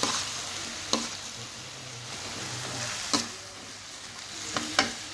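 Vegetable filling sizzling as it is stir-fried dry in a pan, with several sharp knocks of the stirring utensil against the pan.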